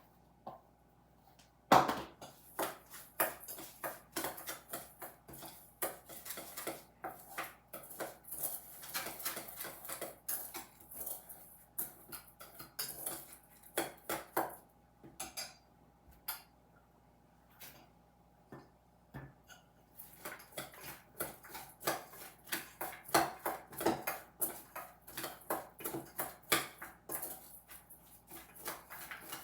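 Utensils clinking and scraping against a bowl or dish in quick, irregular strokes, starting with a sharp knock about two seconds in and pausing for a few seconds past the middle.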